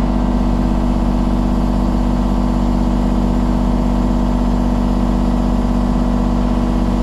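Engine of an earthmoving machine running at a steady speed, a constant hum that holds one pitch throughout.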